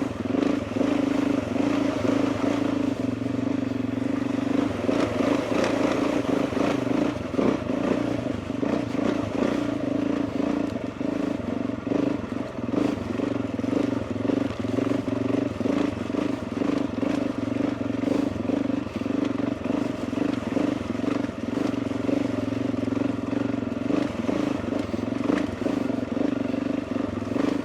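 Motorcycle engine running at a steady, even pitch while riding along, with faint scattered knocks over it.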